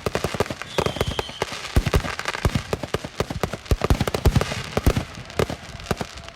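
Fireworks going off in rapid succession: dense, overlapping bangs and crackles, with a brief high whistle about a second in.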